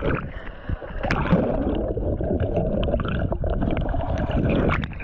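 Whitewater canoe capsizing: splashing, then muffled rushing and gurgling water heard from under the surface, with scattered small clicks and knocks. The sound drops away near the end.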